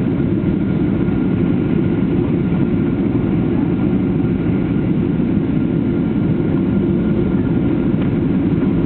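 Airliner cabin noise heard from a passenger seat during the landing approach: the steady, deep drone of the engines and the airflow, with a faint steady whine above it.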